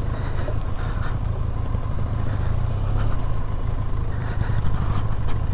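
Benelli TRK 502 parallel-twin motorcycle engine running steadily as the bike rides a rough single-track dirt path, a dense low rumble without revving.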